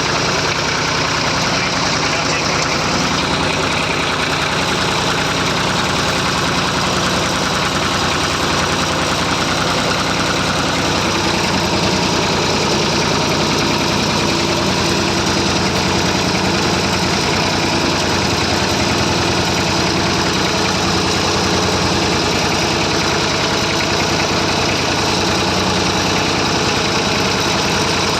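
Massey Ferguson 35 tractor engine running steadily, its note shifting slightly about eleven seconds in.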